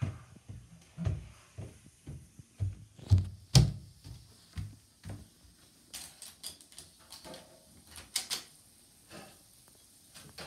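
A door being handled and someone moving about a small room: irregular knocks and thumps, the loudest a little after three seconds in, with a few sharper clicks later on.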